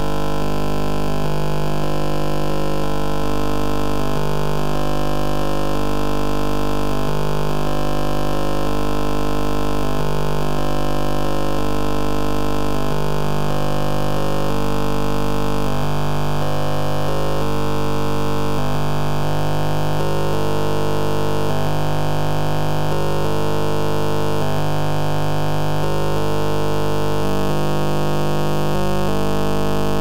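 Loud electronic noise music: a dense synthesizer drone of many held tones over a steady hiss, with tones shifting in blocky steps every second or two.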